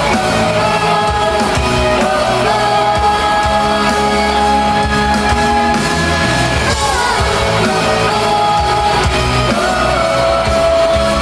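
Live pop-rock band playing with a singer holding long wordless notes over it. The pitch slides down about two-thirds of the way through, and a new note is held near the end.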